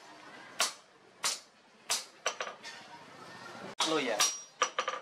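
Hand-hammer blows on a hot steel machete blank on an anvil, a steady series of sharp strikes roughly every half second or so, some ringing briefly. A person's voice is heard briefly near the end.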